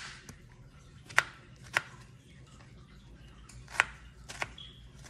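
Kitchen knife cutting strawberries on a cutting board: a handful of sharp, single knocks as the blade meets the board, irregularly spaced, with quiet between.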